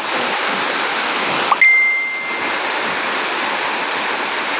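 A steady rushing noise, with one bright ding about a second and a half in that rings out for under a second.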